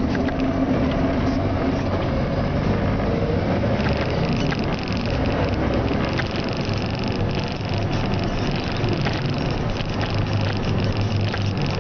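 Delivery truck engine and road noise heard from inside the cab while rolling slowly, a steady low rumble; a steady high whine comes in about four seconds in.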